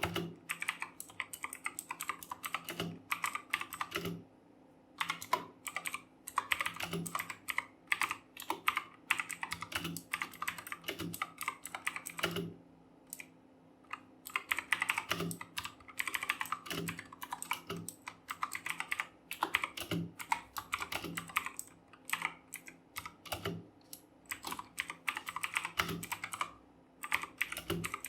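Fast typing on a RedGear Chameleon mechanical keyboard with clicky Kailh Blue switches: a rapid stream of key clicks, broken by brief pauses about four seconds in, around the middle and near the end.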